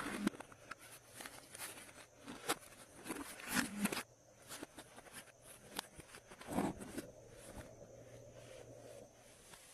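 Glossy slime being worked by hand, giving irregular sticky clicks and small pops, busier in the first half and sparser after.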